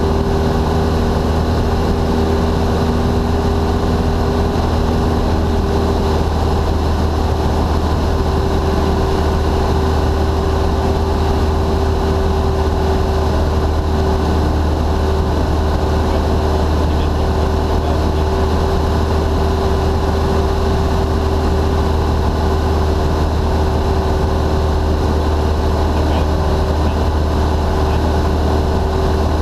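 Steady drone of a Cessna's single piston engine and propeller heard from inside the cockpit in flight, a low hum under a held tone, with one of its tones dropping out about six seconds in.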